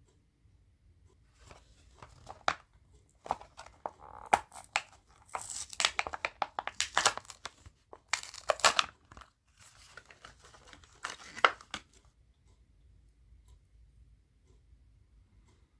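A Hot Wheels blister-card package being torn open: cardboard ripping and the plastic blister crinkling in a series of uneven bursts, stopping about twelve seconds in.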